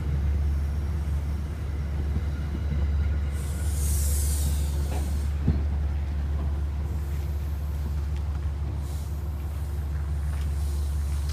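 Metro-North passenger train rolling slowly alongside the platform and coming to a stop, with a steady low rumble. A short hiss of air about four seconds in and a sharp clunk about a second later.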